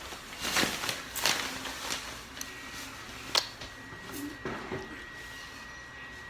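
A few scattered sharp clicks and knocks, the loudest about three and a half seconds in, with a faint steady high whine setting in about two and a half seconds in.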